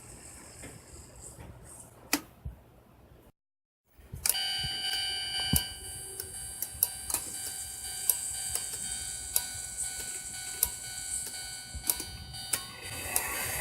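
O-gauge model railroad crossing accessory at work. After a short cut about three seconds in, a steady electrical whine with several tones sets in, and sharp mechanical ticks come roughly once a second.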